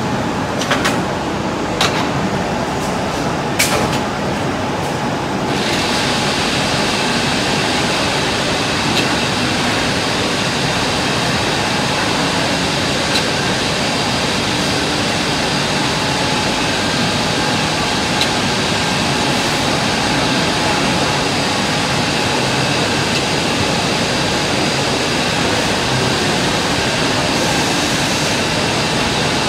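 Multi-spindle CNC gantry boring machine with servo-driven drill heads running: a steady mechanical whir with a few sharp clicks in the first four seconds. A louder steady hiss joins about five and a half seconds in.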